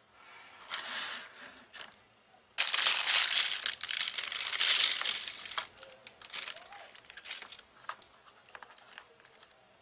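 Clear plastic bag crinkling loudly for about three seconds as a wristwatch is unwrapped from it, then scattered light clicks as the watch and its metal mesh strap are handled.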